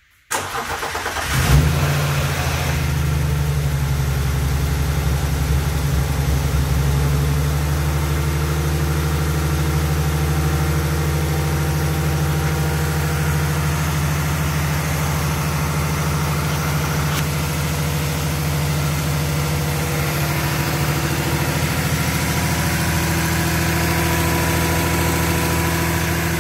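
Turbocharged BMW S52 3.2-litre straight-six, fitted with a GT3582 turbo, cranking briefly and catching about a second and a half in with a short flare, then idling steadily on its first startup.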